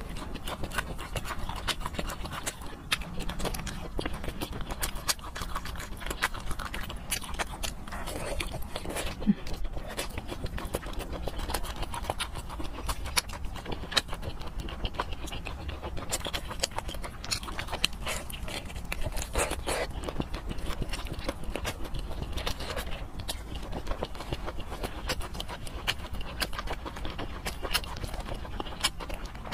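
Close-miked eating sounds of fatty pork: wet chewing and lip smacking, with many small sharp clicks throughout.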